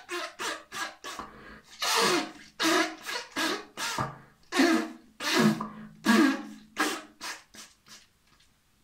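A man blowing his nose hard into a paper tissue: a rapid string of about a dozen short blows, four of them longer and louder, which stops shortly before the end.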